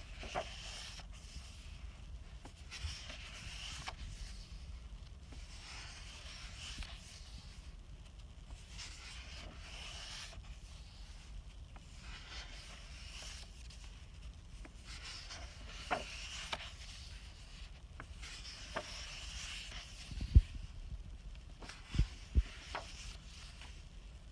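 Paper sketchbook pages handled and turned by hand: short papery rustles and a hand rubbing over the pages every second or two. A few sharp taps come in the last few seconds.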